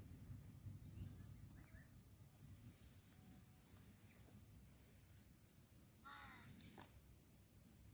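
Quiet dry-forest ambience with a steady high insect drone; about six seconds in, a single short bird call.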